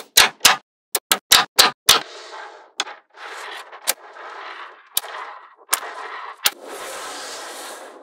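Small magnetic balls snapping together: a quick run of about eight sharp clicks in the first two seconds. Then comes a longer, noisy rattle of many balls shifting against one another, broken by a few single snaps.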